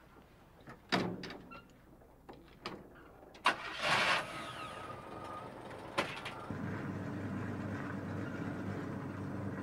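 Old pickup truck: a door shuts with a knock about a second in, then the engine is cranked and catches about three and a half seconds in, and from about six and a half seconds it runs steadily before cutting off suddenly at the end.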